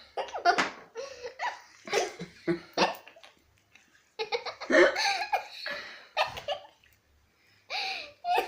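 Children laughing and giggling in two long bouts with a short pause between, and more laughter starting again near the end.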